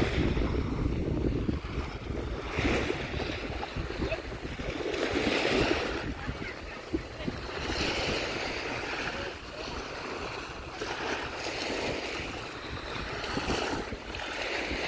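Small Baltic Sea waves washing up on a sandy shore, the surf swelling and fading every two to three seconds, with wind rumbling on the microphone.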